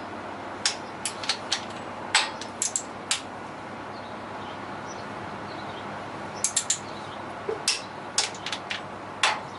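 Sharp metallic clicks and clinks of hand tools on engine parts, coming irregularly in small clusters, with a pause of a few seconds midway.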